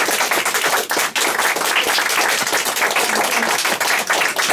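A small group of adults and children applauding close by, many hand claps overlapping.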